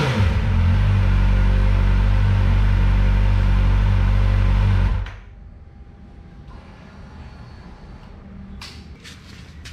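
Kawasaki Ninja ZX-4RR's inline-four engine on its stock exhaust, settling from a rev into a steady idle, then stopping abruptly about five seconds in. A couple of faint clicks follow near the end.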